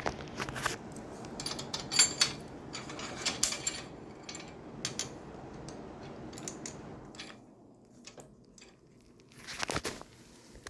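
Handling noise: scattered light clicks and knocks, the sharpest about two and three and a half seconds in, over a low rustle that drops away about seven seconds in, with a short burst of rustling near the end.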